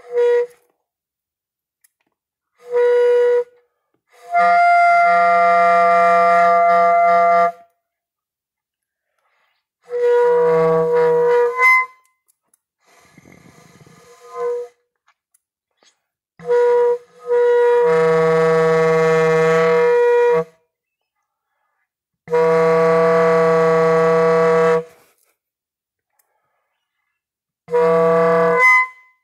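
Homemade saxoflute, a saxophone mouthpiece and neck taped onto a flute body, played with a reedy tone in a series of held notes one to four seconds long, with silent pauses between them. The loose taped joint makes the instrument hard to control.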